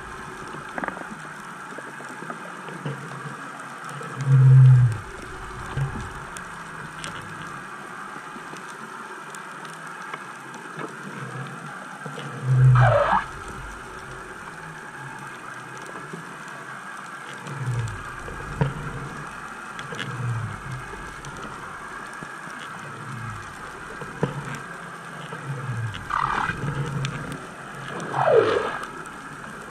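Underwater sound heard by a camera drifting just above a sandy seabed: a steady hiss with a faint constant high tone, dull low thumps every few seconds, and three short falling whistles, one midway and two near the end.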